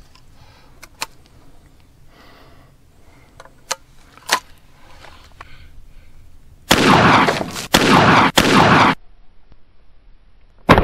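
A 12-gauge Stoeger double-barrel coach gun being loaded and closed, a few sharp metallic clicks. Midway there is a loud rushing noise for about two seconds, broken twice, and right at the end the shotgun fires once, a sudden loud blast.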